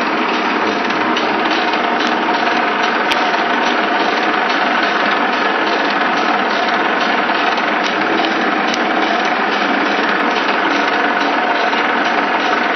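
FR900 continuous band sealer running: a steady mechanical whir from its conveyor drive and fan, with a few light clicks.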